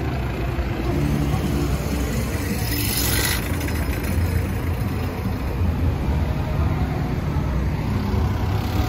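Parade truck engines running with a steady low rumble, some music fading out near the start, and a short hiss about three seconds in.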